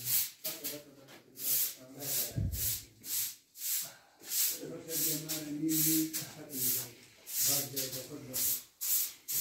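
Footsteps scuffing on a gritty concrete floor at a steady walking pace, about two a second, with a low voice in drawn-out pitched phrases coming and going.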